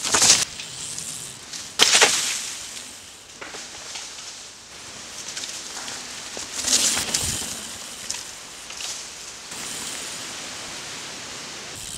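Mountain bike tyres skidding and scrubbing through loose dirt and leaves in three loud hissing bursts, two close together at the start and another about seven seconds in, with the softer crunch of the tyres rolling between them. Near the end the sound settles into a steady hiss.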